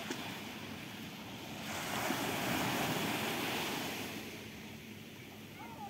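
Sea waves breaking on a sandy beach: a wave crashes and washes up the shore, the rush swelling about two seconds in and fading away over the next two seconds.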